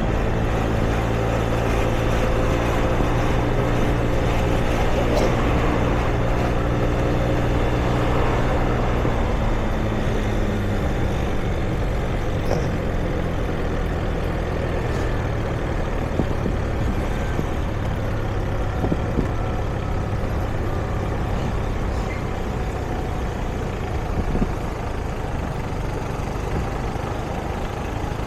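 City street traffic: a heavy vehicle's engine, a truck or bus, runs close by with a steady low hum for about the first ten seconds, then fades into the general noise of passing traffic.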